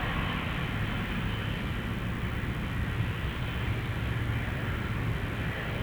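Steady low rumble of jet aircraft engines at an airport, even and unbroken.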